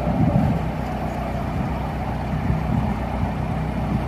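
Narrowboat's Peugeot diesel engine running steadily while the boat cruises under way.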